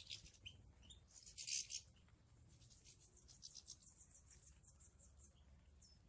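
European goldfinches twittering faintly with short high chirps. A louder burst comes about one and a half seconds in, and a quick run of chirps follows in the second half.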